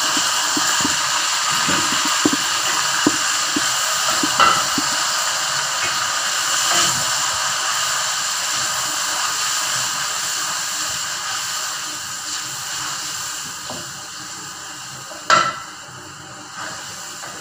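Finely crushed tomatoes sizzling in hot oil in a pan, the sizzle slowly dying down. A few light clicks early on and one sharper knock near the end.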